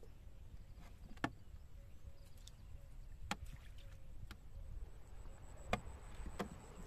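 Small wooden boat being poled through shallow, weed-choked water: a few sharp knocks and clicks, a second or two apart, over a steady low rumble.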